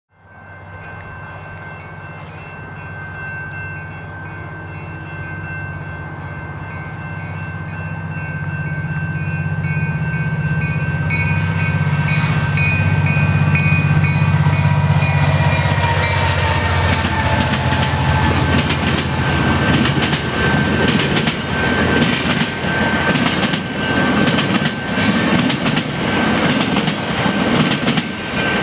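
GO Transit diesel commuter train passing: the locomotive's engine grows steadily louder on approach and its pitch drops as it goes by about halfway through, then the bilevel coaches follow with rapid clickety-clack of wheels over the rail joints.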